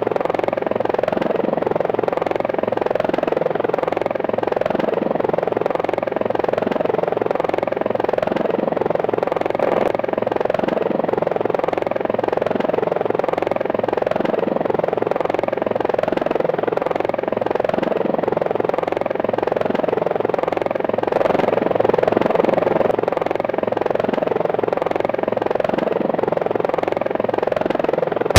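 Helicopter flight sound effect for an Apache attack helicopter: a steady, evenly pulsing rotor beat that swells slightly about two-thirds of the way through.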